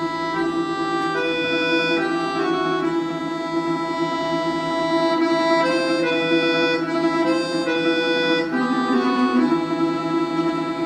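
Russian folk-instrument orchestra playing a slow passage carried by the bayans (button accordions): a steady chord is held under a melody that moves in long held notes.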